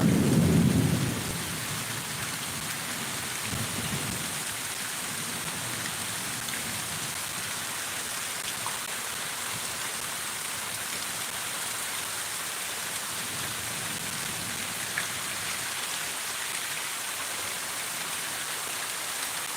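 Heavy rain pouring steadily, with a low rumble of thunder fading away in the first second or so and a couple of fainter rumbles later on.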